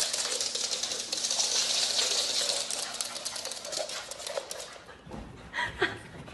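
A small dog's claws clicking and scrabbling rapidly on a hardwood floor as it runs about, fading after about four seconds, followed by a couple of short dog sounds near the end.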